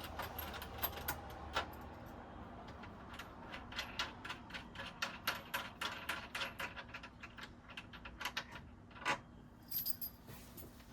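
Small hard sofa fittings being handled and fitted, making a run of quick, irregular light clicks and clinks. One sharper knock comes near the end.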